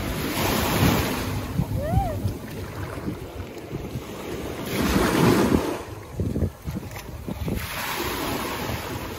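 Small sea waves washing in shallow water, with wind buffeting the microphone; the wash swells in surges about a second in, around five seconds and near eight seconds.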